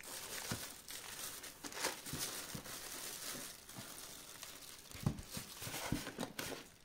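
Clear plastic wrap around a computer monitor crinkling and rustling as hands grip and shift the wrapped screen inside its cardboard box, with a few dull knocks about five seconds in.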